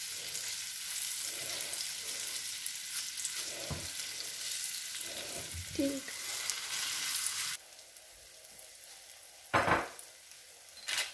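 Syrniki sizzling in oil in a frying pan, with a spatula scraping against the pan as they are turned. The sizzle drops away suddenly about seven and a half seconds in, and two sharp knocks follow near the end.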